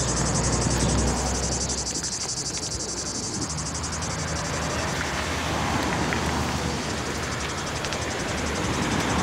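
A steady high-pitched insect chorus with a fast, even pulse, over a soft outdoor noise, with a low hum in the first two seconds.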